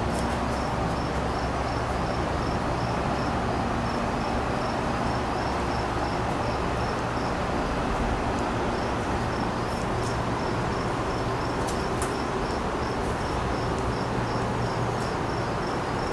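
A steady low rumble and hiss from a train approaching at a distance, with an insect chirping high and evenly, about three chirps a second.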